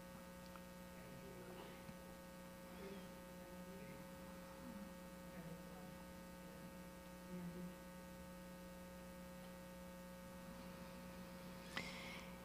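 Near silence with a steady electrical mains hum, and a faint short noise near the end.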